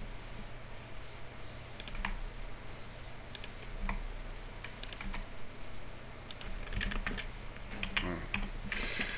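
Scattered, irregular clicks of a computer keyboard and mouse being worked, over a steady low electrical hum.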